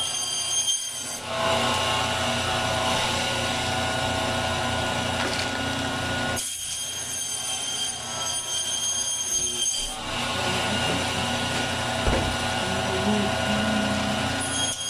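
Vertical meat band saw running steadily with a high ringing whine as its blade cuts through a lamb rack. The sound dips briefly three times, between passes of the meat through the blade.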